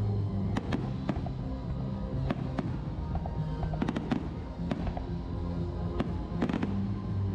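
Fireworks going off in sharp, irregularly spaced bangs, several in quick succession about four seconds in, over music with steady low bass notes.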